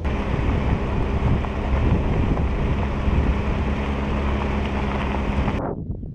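Wind rushing over a microphone mounted outside a truck driving along a dirt track, over the steady hum of the engine and tyres. A little before the end it cuts abruptly to weaker gusts of wind.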